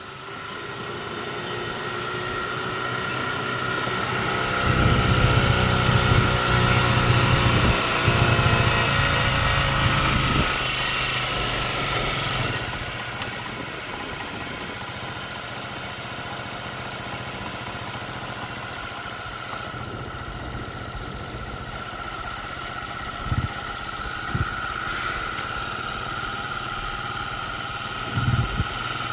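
A motor vehicle engine running: it grows louder over the first few seconds, is loudest for several seconds, then settles to a steady lower drone. A steady high whine continues throughout, with a couple of brief knocks near the end.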